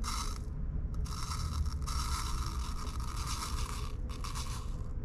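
Scraping and rustling of dry yeast being scooped into a small cup for weighing: a steady scratchy sound broken by short pauses about half a second in and again near four seconds.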